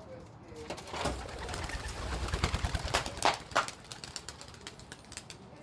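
Racing pigeons taking off from the loft in a flurry of wingbeats, loudest and densest in the middle second or two, then thinning out.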